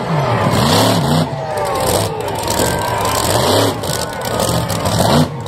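Monster truck engine revving hard, its pitch climbing and dropping several times in quick succession.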